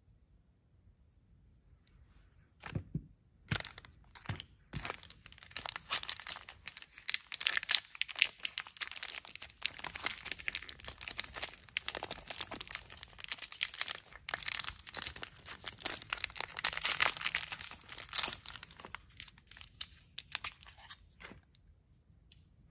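A small plastic toy wrapper being opened and crinkled by hand: a few separate snaps, then dense crinkling for about fifteen seconds that dies away near the end.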